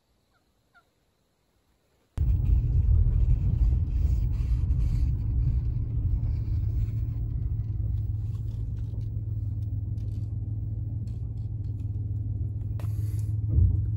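Near silence with a single faint wild turkey call, then from about two seconds in a sudden steady low rumble of a truck driving slowly along a dirt track, heard from inside the cab, with a brief knock near the end.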